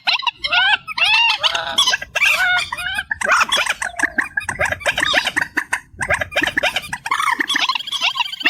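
Trích ré, a Vietnamese marsh bird, calling in fast runs of short chattering notes, several voices overlapping, from an amplified lure recording. The calling breaks off briefly about two, three and six seconds in.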